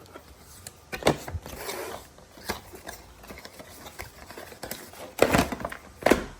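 A flashlight's box being unpacked by hand: cardboard and packaging rustling, with irregular sharp clicks and knocks as parts are taken out, the loudest about five and six seconds in.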